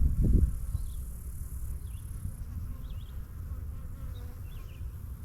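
Honeybees buzzing as a steady low hum around an opened hive, with a brief louder low rumble right at the start. Faint high chirps repeat about once a second.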